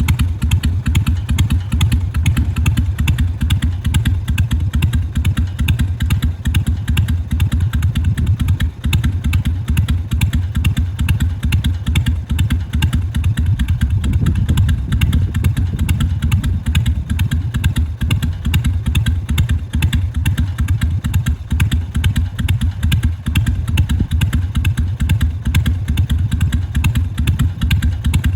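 Carbureted Harley-Davidson Sportster 883's air-cooled 45-degree V-twin idling steadily with its uneven 'potato-potato' lope.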